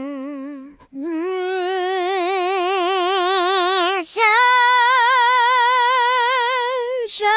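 AI-synthesised female singing voice from the Omnivocal plugin holding long sung notes with an even vibrato. One note ends about a second in, and after a short break the voice steps up to two longer, higher held notes.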